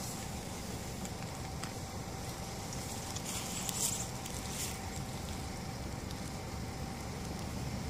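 Steady low outdoor rumble with a faint steady hum underneath, and a brief burst of crackly rustling about three and a half to four and a half seconds in.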